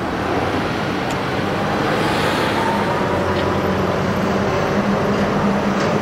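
Steady road traffic noise, with an engine's low hum running under it.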